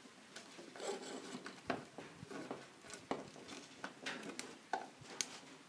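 Faint, irregular clicks and rustling of wires being fitted and screwed into the terminals of a plastic light switch.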